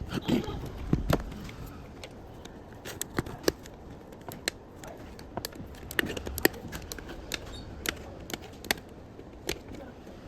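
Irregular sharp clicks and light taps, from small plastic and metal parts and tools being handled while a laptop is taken apart.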